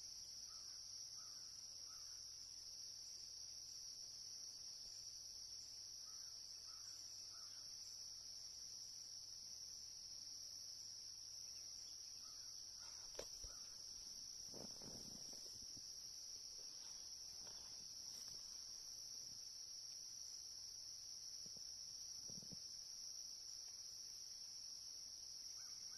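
Steady, high-pitched chorus of insects trilling together. A faint three-note call repeats every five or six seconds. About halfway through there is one sharp click, followed by a few soft low bumps.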